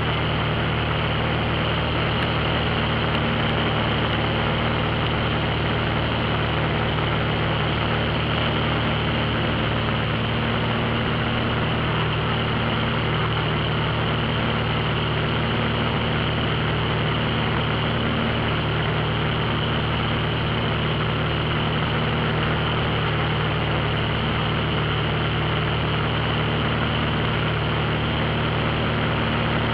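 Steady drone of a high-wing light aircraft's engine and propeller in level flight, heard from inside the cabin, unchanging throughout.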